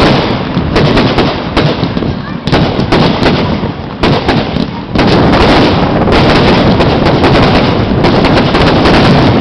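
Fireworks display: shells bursting in rapid succession with sharp bangs and crackle. It thickens into a dense, nearly continuous barrage from about five seconds in.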